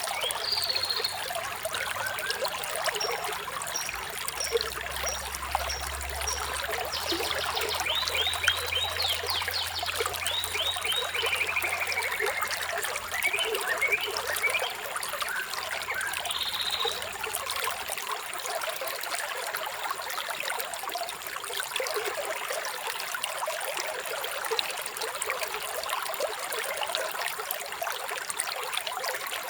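Running water trickling steadily, with small birds chirping over it: a short run of high repeated notes, a rapid trill and a falling note. The birds stop about two-thirds of the way through, leaving only the water.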